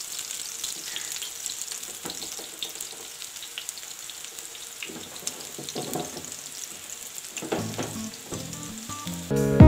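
Rice-flour patties sizzling and crackling as they shallow-fry in oil on a flat pan, a steady hiss with small pops. Loud background music cuts in just before the end.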